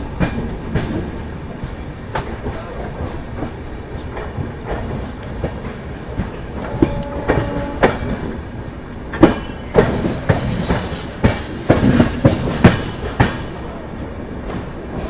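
Rajdhani Express coaches rolling slowly through a station, their wheels clacking over rail joints and points over a steady rumble. The clacks come thicker and louder in the second half as the wheels cross the station's points.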